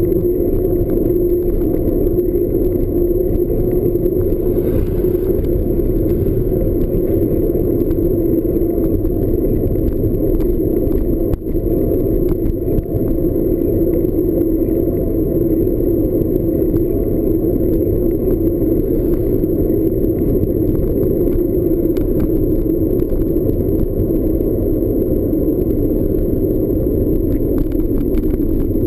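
Steady low rumble of a ride in motion, with light rattling and a faint constant high-pitched tone over it.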